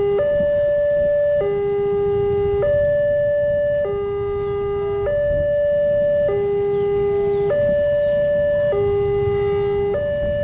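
Railway level-crossing warning alarm sounding its electronic two-tone signal, warning of an approaching train. It alternates evenly between a higher and a lower tone, each held a little over a second.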